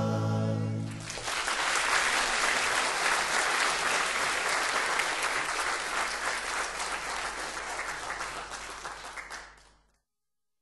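A held sung chord ends about a second in, followed by audience applause that fades out near the end.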